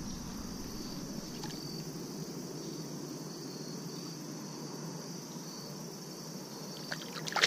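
Crickets chirping steadily in a continuous high-pitched drone, with a short splash near the end as a small pike is let go into the river beside the kayak.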